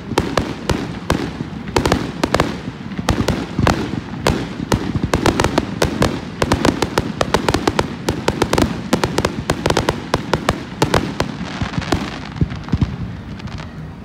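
Fireworks going off in a show: a dense, fast run of sharp cracks and bangs, several a second, one after another without a break.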